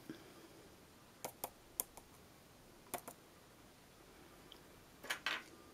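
Light, sharp clicks and taps of small objects being handled on a tabletop: a few scattered ones between one and three seconds in, then a short cluster near the end.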